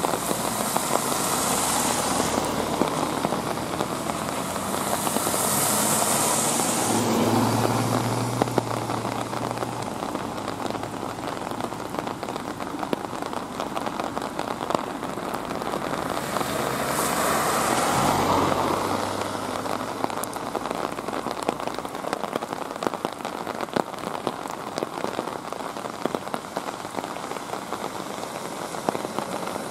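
Steady rain falling, with sharp ticks of individual drops landing close by. Cars pass a few times on the wet road, at the start, around six seconds in and around eighteen seconds in, each a swelling hiss of tyres with a low engine note.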